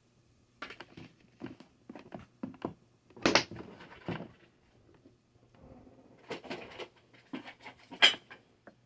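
Irregular clicks, knocks and light clatter of objects being handled and moved, with a louder knock about three seconds in and another near the end, over a faint steady low hum.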